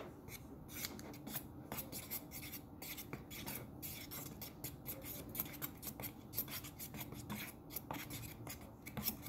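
Glue and pink food coloring being stirred in a plastic tub to make slime. A utensil scrapes quickly against the sides and bottom, about four strokes a second.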